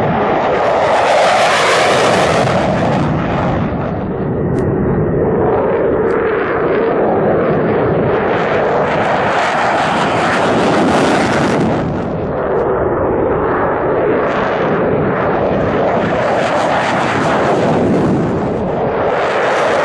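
F-16 fighter jets taking off one after another on afterburner. The jet noise swells and fades three times as each aircraft passes.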